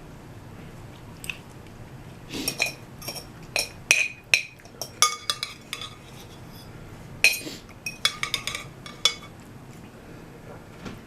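Eating utensils clinking and tapping against a dish of ramen, a run of sharp ringing clinks about two seconds in and another after the middle.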